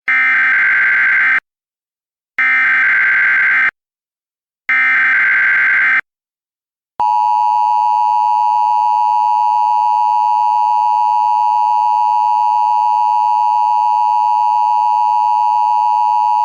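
Emergency Alert System tones opening an alert broadcast. First come three short, identical bursts of screechy digital data (the SAME header), about a second apart. About seven seconds in, the steady, harsh two-tone attention signal starts and holds.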